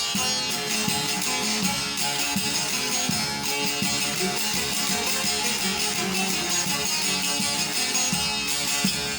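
Instrumental interlude of a Turkish folk song (türkü): a plucked string instrument played in quick, steady strokes, with no singing.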